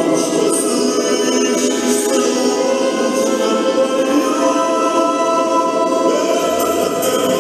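Recorded music with a choir singing in long, sustained voices; a low bass note comes in near the end.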